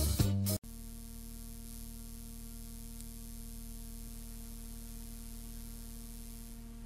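Background music cuts off abruptly just over half a second in, leaving a steady electrical hum with faint hiss for the rest.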